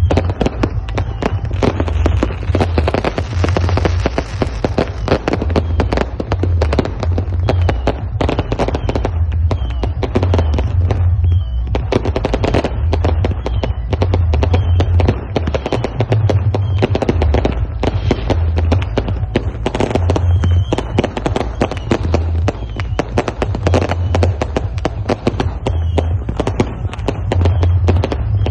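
Firecrackers and fireworks going off in rapid, nearly unbroken succession as a dense crackling. A heavy bass beat from a loud sound system runs underneath.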